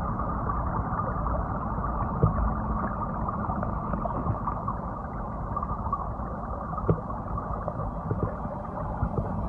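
Muffled rush and churn of seawater heard through a camera held underwater, dull and without any high sound, with a few knocks against the camera.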